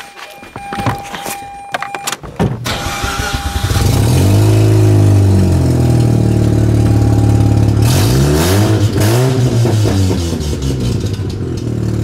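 Mazda RX-8's twin-rotor rotary engine starting about two and a half seconds in, then revved up twice and running smoothly, its misfire cured by a replacement ignition coil. Before it starts there are clicks, thunks and a steady tone.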